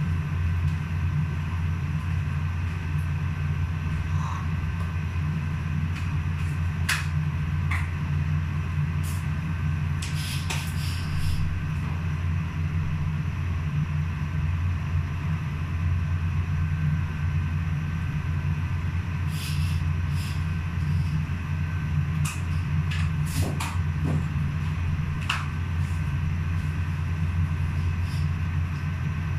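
Kitchen range hood fan running with a steady low drone. Short light clinks of cookware and utensils come now and then.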